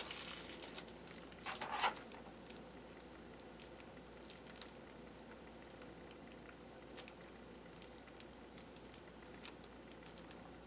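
Plastic sandwich bag crinkling a few times in the first two seconds as it is handled to spread thermal paste, then only faint scattered ticks.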